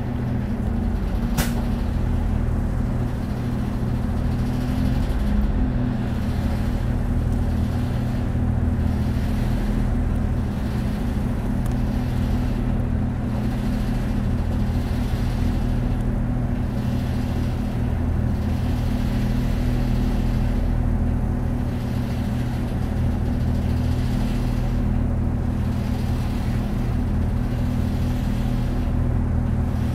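Mitsubishi Fuso Aero Star city bus (LKG-MP37FKF) driving along, heard from inside: its inline-six turbodiesel drones steadily with road noise, and a brief click comes about one and a half seconds in.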